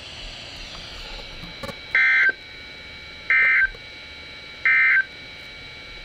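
Three short, loud bursts of NOAA Weather Radio SAME digital header data, evenly spaced about 1.3 seconds apart, over a faint receiver hiss, played through a weather radio's speaker. The header encodes a Required Weekly Test.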